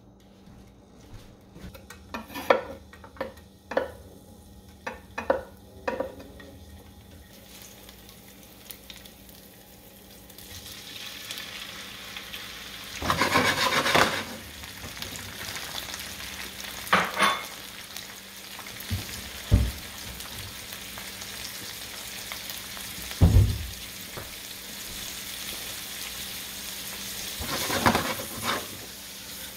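Olive oil frying in a nonstick pan. A few light clicks and knocks come in the first six seconds, then a steady sizzle builds from about ten seconds in. About thirteen seconds in comes a louder rush of sizzling as raw shrimp go into the hot oil with garlic and chili, and there are a couple of dull knocks of the pan later on.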